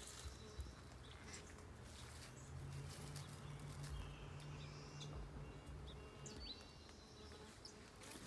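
Songbirds chirping faintly in short, scattered calls over quiet outdoor ambience, with a low steady hum through the middle.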